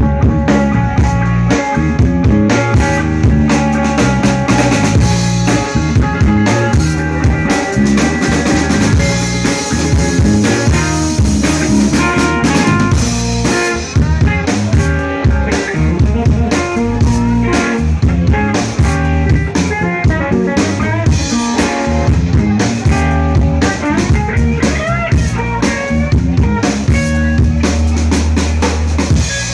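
Live blues band playing: electric guitar lines over a full drum kit, with kick drum and cymbals driving a steady beat.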